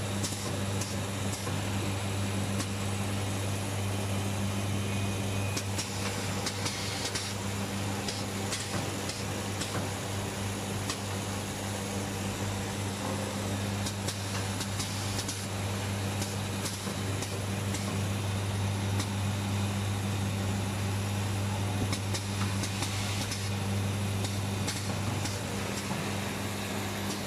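Factory machinery running with a steady low hum and a constant noise bed, with faint scattered ticks.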